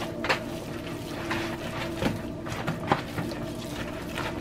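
Raw ground turkey mixed with chopped vegetables and egg being stirred by hand with a utensil in a plastic mixing bowl: a continuous wet, squishing churn, with a few sharper scrapes or clicks of the utensil against the bowl. A steady low hum runs underneath.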